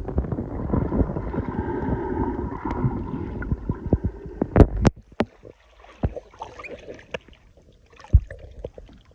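Muffled underwater water noise around a camera held below the surface: dense churning and gurgling with many small knocks, which drops away sharply about five seconds in, leaving scattered clicks and a single thud near the end.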